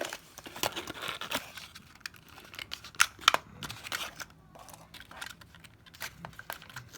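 Toy packaging being worked open by hand: irregular crinkling, tearing and scratching, with two sharp snaps about three seconds in.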